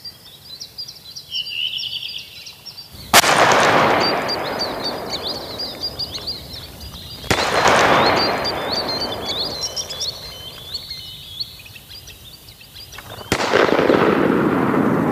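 Three shotgun shots of a duck hunt, about four and then six seconds apart, each followed by a long echo fading away, over continuous high chirping of birds.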